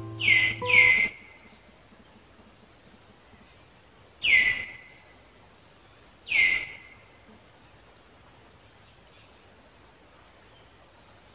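Four sharp animal calls, each sweeping down in pitch and ending on a short held note: two in quick succession at the start, then one about four seconds in and another about six seconds in. A faint outdoor background lies between them.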